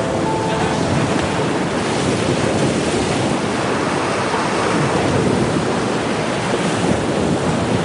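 Steady rush of sea waves on the shore, mixed with wind.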